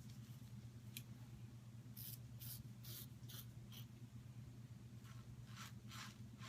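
Faint, short scraping strokes of a Merkur Futur safety razor cutting stubble through lather, on an against-the-grain pass: several quick strokes in a row about two seconds in, and two more near the end.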